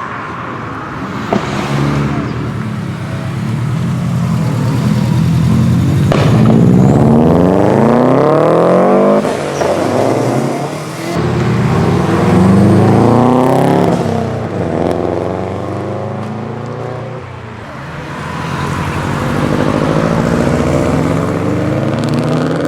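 Subaru Impreza flat-four boxer engine with its rumble, accelerating hard and climbing in pitch several times as it goes up through the gears. There is a short click about a second in.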